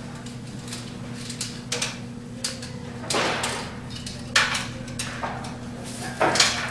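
Handling noise from ballast wires and socket plates being worked with quick-connect fittings: scattered light clicks and rustles, with three louder short scrapes about three, four and a half and six seconds in. A steady low electrical hum runs underneath.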